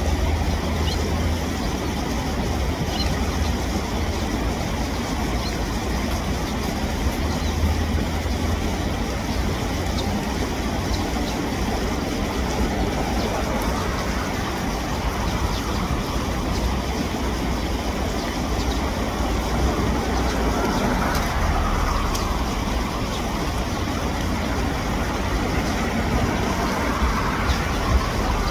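Steady low rumble of background road traffic, heaviest in the deep bass, with no distinct events.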